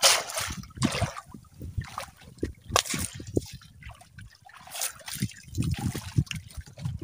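Water splashing and trickling in short bursts about every one to two seconds, with low thumps in between.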